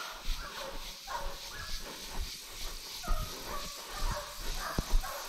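Hunting dog barking over and over, about two barks a second, as it bays on a wild boar. A couple of sharp knocks come near the end.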